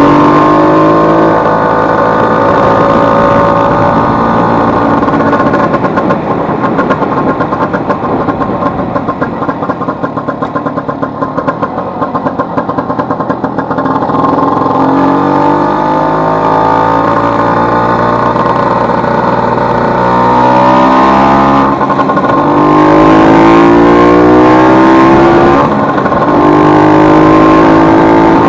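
Vespa 150's single-cylinder two-stroke engine under way on the road, revving up through the gears with its pitch climbing and then dropping at each shift, three times. For several seconds in the middle it eases off to a lower, uneven beat before pulling up again. It runs with its elastic pinion newly replaced, the fault that had caused a loud engine noise.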